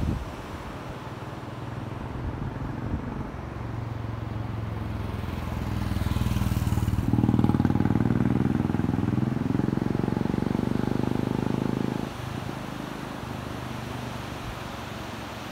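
A motor vehicle engine running close by. It grows louder over the first several seconds, is loudest in the middle, then cuts off abruptly about twelve seconds in.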